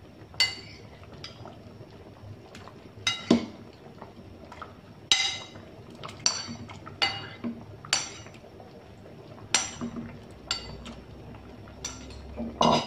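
A spoon clinking and scraping against a china bowl, about a dozen sharp ringing clinks at irregular intervals, as fish pieces are scraped into a pot of porridge, which bubbles softly underneath.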